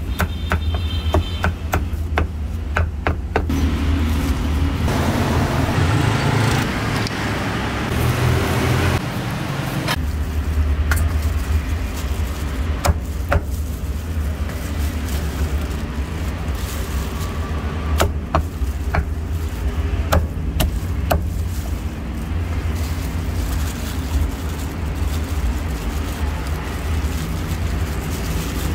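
Meat cleaver chopping roast duck and crispy pork on a chopping block: sharp, irregular knocks spaced a second or more apart. Under them is a steady low rumble of road traffic, with a louder rushing noise from about five to ten seconds in.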